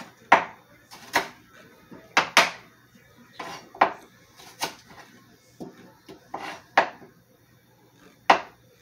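Kitchen utensils and dishes clinking and knocking on a counter: about ten sharp, irregularly spaced knocks with softer rustles between them, as garlic is being peeled.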